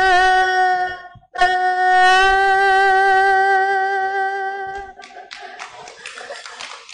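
Erhu bowed in long held notes with vibrato. One note sounds until about a second in, then a short break, then a long held note that fades out after about four and a half seconds. The last two seconds are quieter, without a clear pitch.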